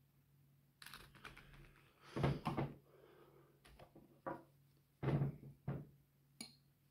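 Paint tubes and a palette knife being handled: a handful of separate clunks and rustles, the loudest about two seconds in and again about five seconds in, over a faint steady hum.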